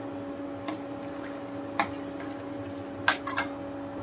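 A ladle stirring thick moong dal in a stainless steel pot, with soft squelches and a few light clicks of the ladle against the pot, over a steady hum.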